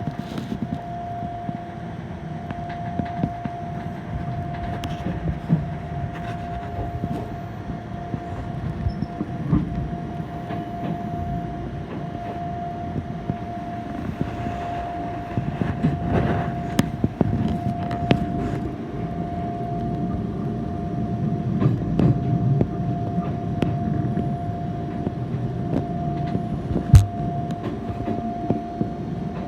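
Fukui Railway 770-series train running slowly under a strong-wind speed restriction, heard from on board: a steady wheel-and-rail rumble with a thin constant whine and scattered clicks and knocks. There is one sharp, loud knock near the end.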